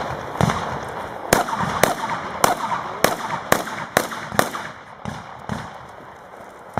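Shotgun fired in a rapid string, about eight shots roughly half a second apart, each a sharp bang with a short echo. A few fainter, duller bangs follow after the string ends.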